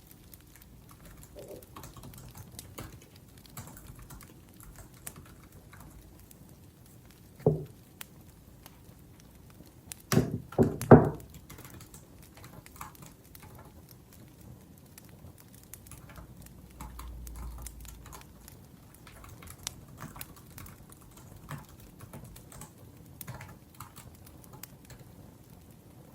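Typing on a laptop keyboard, a scatter of soft key clicks. A louder thump comes about seven seconds in, and a quick cluster of heavier knocks follows about ten seconds in.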